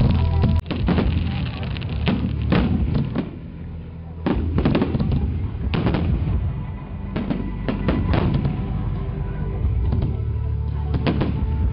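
Aerial firework shells bursting in a string of about a dozen bangs, several coming in quick pairs, with music playing underneath.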